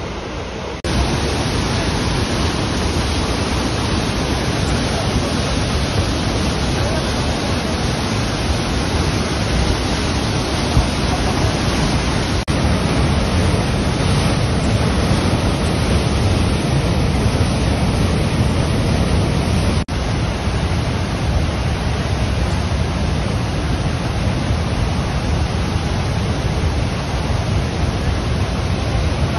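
Steady rushing of a flash-flooded mountain river, a muddy torrent pouring over boulders. The sound breaks briefly where clips are joined, about a second in and twice more later.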